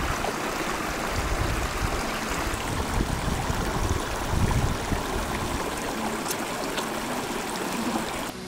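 Small mountain stream running over rocks: a steady rushing and trickling with an uneven low rumble beneath, cutting off just before the end.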